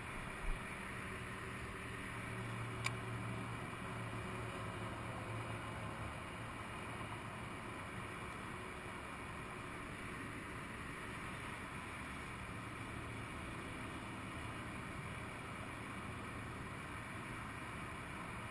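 Faint steady hum of distant vehicle engines, with a low drone that swells about two seconds in and fades out by about seven seconds, returning faintly later; a single light click near three seconds.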